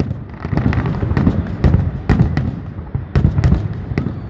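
Fireworks shells bursting in quick succession, about two to three sharp bangs a second, each followed by a low rolling rumble.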